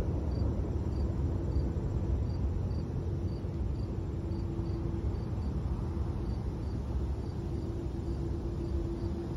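A cricket chirping steadily, about two short, high chirps a second, over a low steady rumble.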